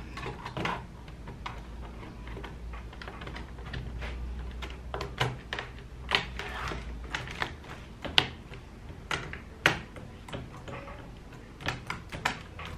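Replacement laptop keyboard being pressed into place in a Lenovo G400's deck: irregular plastic clicks and taps of keys and keyboard as hands press down across it, busiest in the middle of the stretch.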